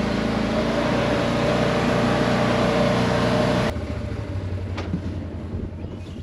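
Side-by-side utility vehicle engine running steadily as it drives over grass; about two-thirds of the way through the sound drops suddenly to a quieter low hum.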